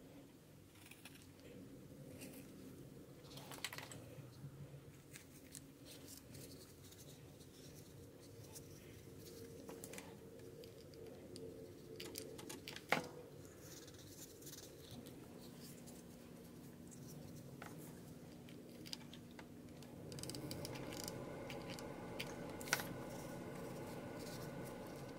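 Quiet rustling and scratching of felt fabric being handled and pressed around a foam ball, with scattered small clicks and one sharper click about 13 seconds in. A faint steady hum comes in near the end.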